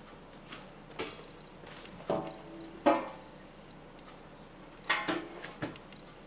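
Hard parts of a ventilation fan knocked and clattering as they are handled, about six sharp knocks, a few with a short ring.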